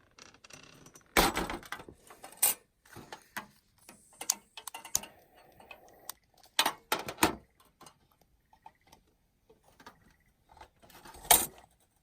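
Objects being handled: irregular knocks, clicks and clatter, the loudest knock near the end.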